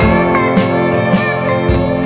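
Background music: a pitched, string-like melody over a steady beat of about two strokes a second.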